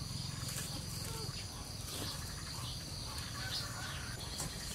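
Outdoor ambience of insects droning steadily on one high note, with faint, scattered bird chirps and a low hum underneath.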